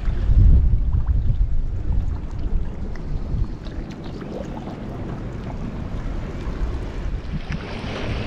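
Wind buffeting the microphone: a low rumble, strongest in the first couple of seconds and then settling to a steadier level.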